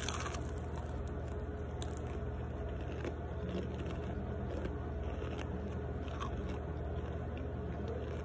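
A person bites into a crunchy baked snack, one sharp crunch at the start, then chews it with the mouth closed, with a few fainter crunches now and then.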